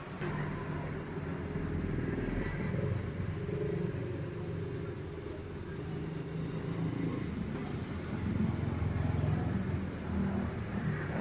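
Daan Hari 186 motorcycle engine idling, its sound swelling a little a couple of times as the carburetor is adjusted.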